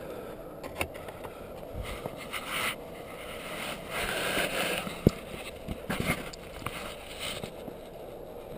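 Close handling and movement noise: rustles, scrapes and sharp knocks near the microphone as the wearer shifts and steps in snow, with a louder rushing stretch about four seconds in and one sharp click about five seconds in.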